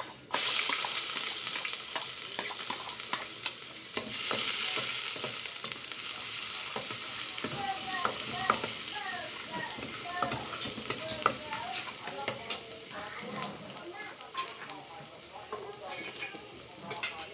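Chopped seasonings hitting hot oil in an aluminium pot and sizzling loudly at once, with a second surge of sizzling about four seconds in that slowly dies down. A metal spoon clicks and scrapes against the pot as they are stirred.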